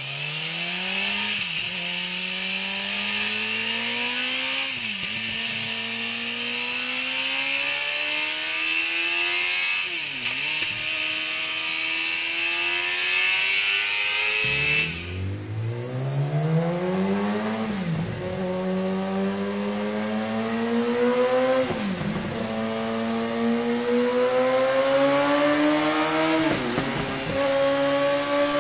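Kawasaki ZX-10R inline-four motorcycle engine accelerating hard through the gears, its pitch climbing and dropping at each of three upshifts on the stock exhaust, under a loud hiss. About halfway through the sound cuts to the same bike on a MIVV GP Pro slip-on exhaust, without the hiss and a little quieter, again climbing and dropping through three upshifts.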